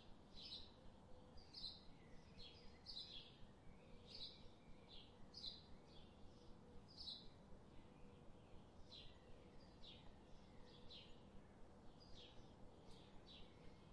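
Faint high chirps repeating about twice a second at an uneven pace, over a faint steady hum.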